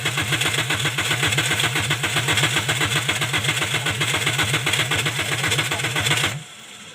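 Toyota Corolla XLi engine being cranked on the starter: a long, fast, even pulsing that stops abruptly near the end without the engine catching. This is the car's hard-start fault, which the electrician traces to a cam/crank sensor signal failure.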